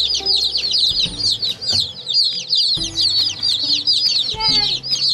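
A brood of dozens of day-old chicks peeping loudly and without pause, many short, high chirps overlapping.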